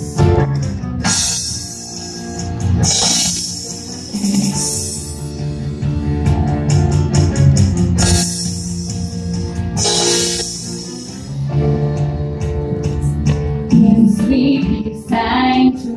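Live band of keyboard, bass guitar and drum kit playing an instrumental introduction, with sustained chords and repeated cymbal swells.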